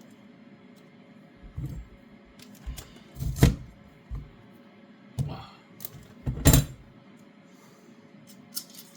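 Blunt kitchen knife halving sprouts on a chopping board: a series of irregular knocks and thumps, the two loudest about three and a half and six and a half seconds in.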